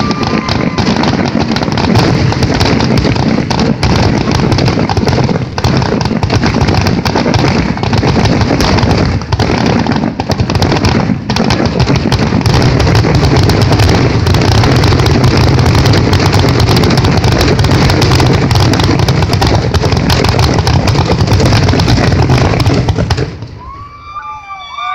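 Fireworks finale: aerial shells bursting overhead in a dense, unbroken barrage of bangs and crackle, very loud. The barrage stops abruptly about a second before the end.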